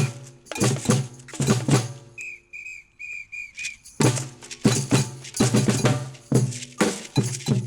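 Batucada percussion: deep surdo-like drum beats with shakers and hand percussion, falling away about two seconds in for five short blasts on a samba whistle, after which the full drum group comes back in at about four seconds.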